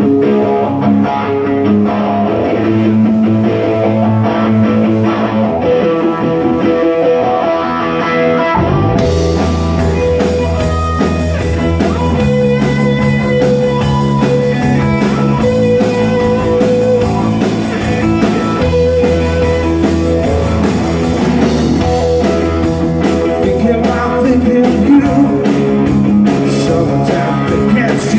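Live rock band: an electric guitar plays a repeating riff alone, then drums and bass guitar come in about nine seconds in and the full band plays on.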